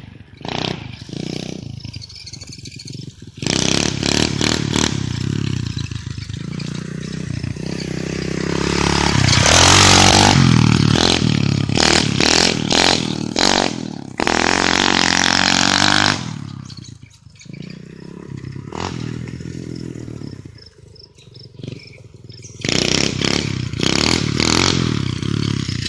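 Pit bike engine revving as it is ridden, rising to its loudest about ten seconds in, falling back to a lower note around sixteen seconds, then revving hard again near the end.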